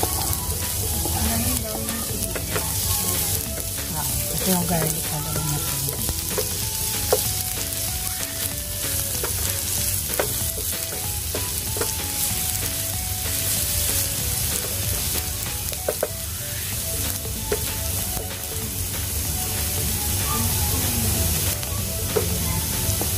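Chopped onion sizzling in hot oil in a nonstick frying pan, stirred with a spatula that now and then clicks and scrapes against the pan.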